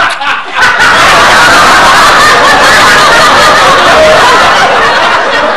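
Sitcom laugh track: a crowd of audience laughter starts about half a second in, stays loud, and eases off slightly near the end.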